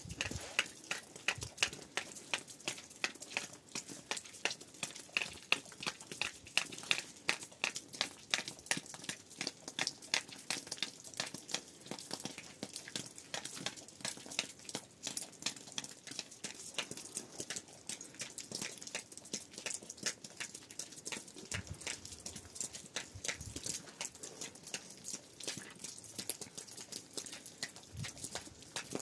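Raindrops dripping and pattering onto hard surfaces, many irregular sharp taps several a second.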